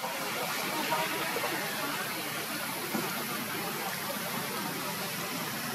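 Steady outdoor background hiss, with a few faint soft sounds beneath it.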